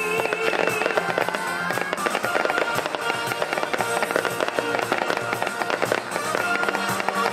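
Fireworks going off in rapid, continuous succession, a dense crackling and popping from ground fountains and small aerial shells, over music playing.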